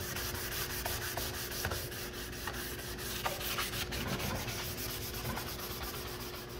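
Sanding sponge rubbed by hand over a stained wooden cabinet door in quick back-and-forth strokes, a steady scratchy rasp. It is scuffing off the clear coat so that primer will adhere.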